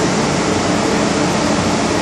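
Steady interior noise of an MTR M-Train carriage standing at the platform: an even rushing sound from the air-conditioning, with a low hum under it.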